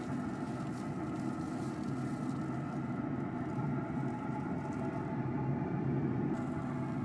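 Steady machine hum with several held tones over a low rumble, unchanging throughout.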